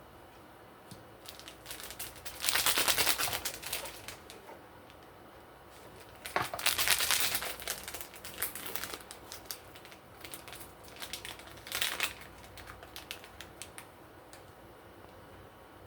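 Packaging crinkling as it is handled, in several bursts of rustling and crackling; the two loudest come about two and a half and six and a half seconds in, with smaller rustles after them.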